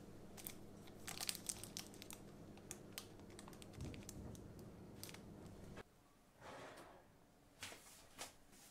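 Faint crinkling and crackling of the thin plastic wrapper around a stack of paper muffin cups as a hand picks it up and turns it. There is a dense run of sharp crackles for the first five or six seconds, then a few softer rustles and clicks near the end.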